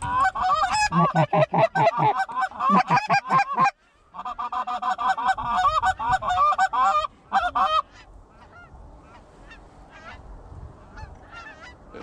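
Geese honking: a rapid series of loud, close honks with a brief break about four seconds in, giving way to faint, distant honking after about eight seconds.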